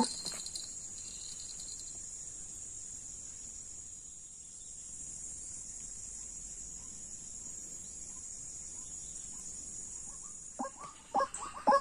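Steady, high-pitched insect chorus. It stops about eleven seconds in, as a run of short, sharp, repeated animal calls begins near the end.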